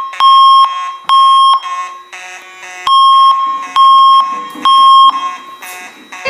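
Fire alarm sounding the temporal-three evacuation signal: three steady beeps of about half a second each, a pause, then three more, with an echo after each beep. The pattern is the standard signal to evacuate the building.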